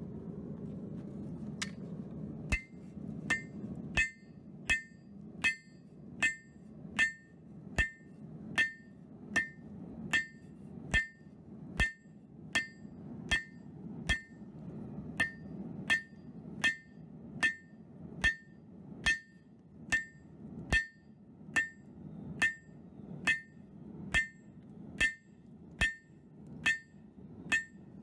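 Blacksmith's hammer beating steel on an anvil: evenly spaced blows, a little more than one a second, each with a short metallic ring. The blows begin a couple of seconds in, over a steady low rumble.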